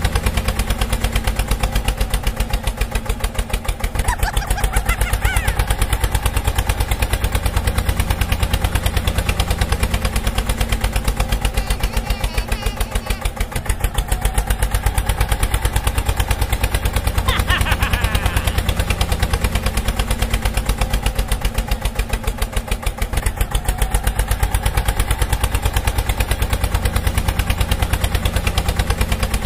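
Diesel tractor engine sound effect, a fast, steady chugging that stays the same throughout. Two brief chirps come through, a few seconds in and again about midway.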